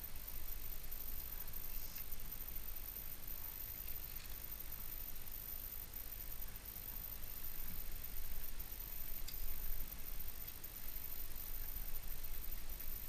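Steady rush of river rapids flowing past, with a few faint ticks.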